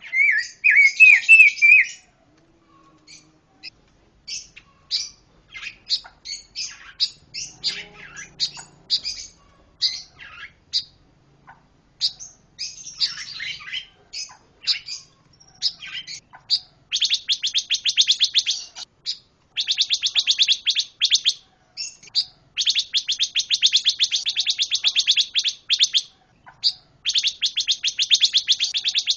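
Caged songbird of the kind Indonesian keepers call pancawarna, singing loud, full song. It opens with a few quick rising whistles, goes on in scattered varied chirps, and from about halfway delivers long bursts of very rapid trilled notes, several seconds each, with short breaks between.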